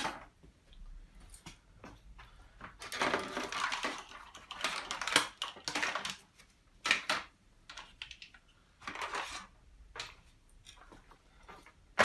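Hard plastic washing-machine parts clattering and knocking as they are handled, in uneven bursts with a few sharp clacks.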